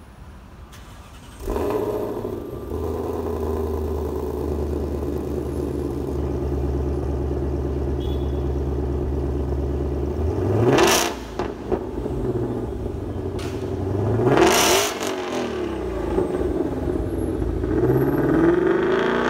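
2020 Ford Mustang Shelby GT500's supercharged 5.2-litre V8 heard at its quad exhaust tips in Track exhaust mode. It idles steadily and is blipped: a sharp rev about ten seconds in, another about four seconds later, and a rise again near the end.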